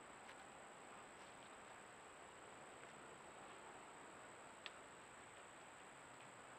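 Near silence: a faint steady hiss with a thin, steady high-pitched tone, and a single faint click about two-thirds of the way through.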